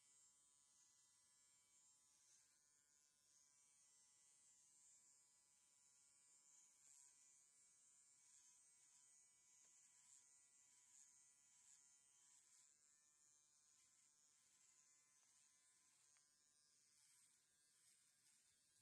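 Small electric clippers buzzing faintly and steadily as they trim the hair inside a horse's ear.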